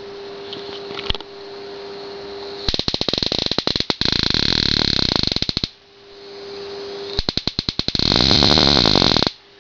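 Salt-water Leyden jar discharging as high-voltage sparks: a steady electrical hum, then rapid loud snapping sparks that quicken into a continuous crackling arc for about three seconds, and after a short pause of hum a second run that builds the same way and cuts off suddenly near the end.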